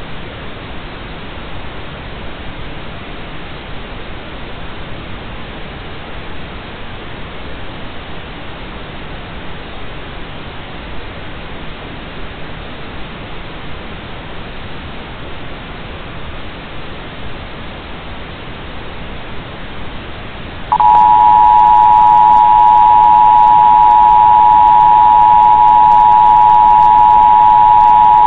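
Steady hiss of a dead broadcast feed. About 21 seconds in, a loud two-tone Emergency Broadcast System attention signal cuts in abruptly and holds steady.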